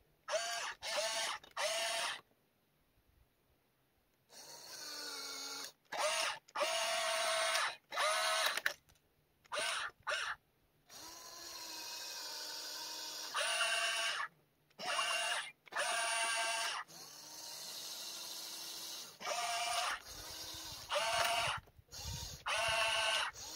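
Small electric motors of an RC excavator whining in repeated stop-start bursts as the boom, bucket and tracks are worked, each burst half a second to two seconds long, with a few longer, quieter runs at a lower pitch in between.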